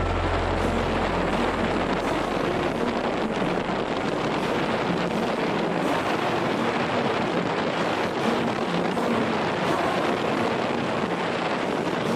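Wind rushing over the microphone of a handlebar-mounted camera on a moving vintage Vespa scooter, steady at cruising speed, with the scooter's two-stroke single-cylinder engine a faint hum beneath the wind.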